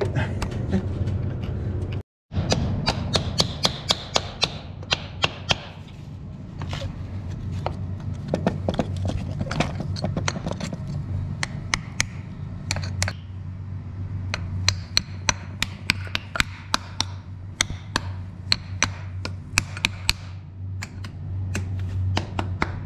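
A claw hammer tapping repeatedly on a heavy-duty truck starter's steel mounting plate, working the spacer plate loose so it can go onto the new starter. The taps are sharp metal knocks, a few a second in uneven runs, over a steady low hum.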